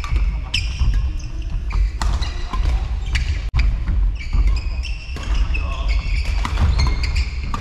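Badminton rally in a sports hall: sharp racket strikes on the shuttlecock and shoe squeaks on the court floor over the hall's steady background rumble, with a brief break about three and a half seconds in.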